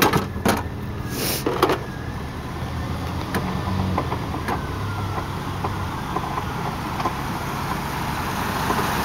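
A motor vehicle running on the street, a steady engine and road noise that grows a little louder near the end. In the first couple of seconds there are a few clicks and knocks of things being shifted in a car trunk.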